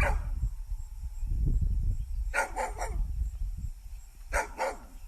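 A dog barking: a quick run of three barks about halfway through, then two more near the end, over a steady low rumble.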